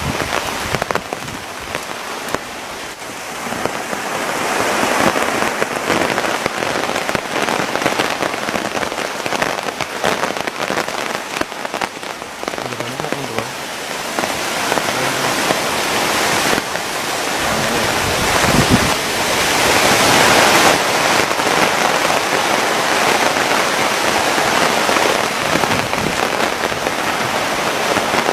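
Heavy rain falling: a steady hiss of countless drops that grows louder and heavier about halfway through.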